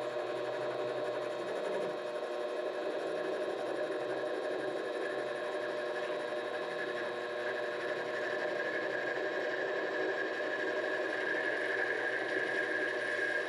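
Vevor 7x12 mini-lathe running steadily with a motor and gear whine. A higher whine grows louder over the last few seconds.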